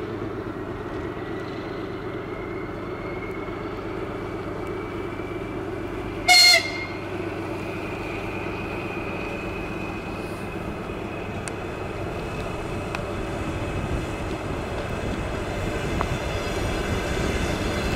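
DR1A diesel multiple unit, its diesel engine running with a steady hum that grows louder toward the end. About six seconds in it gives one short, loud horn toot.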